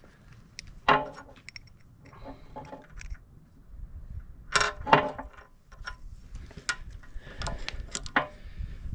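Irregular metal clinks and knocks from tools and steel parts being handled and struck while refitting an excavator bucket tooth's pins and rubber grommet, a few sharp hits spread through, the loudest about five seconds in.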